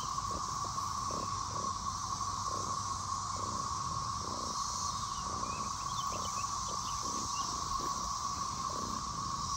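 A chorus of many cicadas making a continuous, steady drone.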